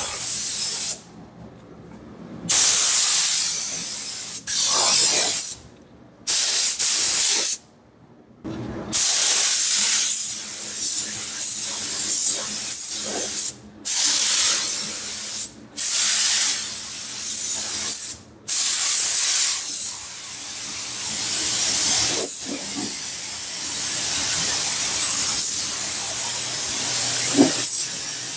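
Gravity-feed paint spray gun hissing with compressed air as black paint is sprayed onto the truck body, in long passes that cut off sharply several times when the trigger is released.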